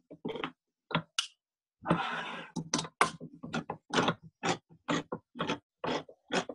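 Manual hand-crank can opener cutting around the lid of a steel tomato can, in short grinding strokes about two a second as the key is turned, with a longer crunching grind about two seconds in.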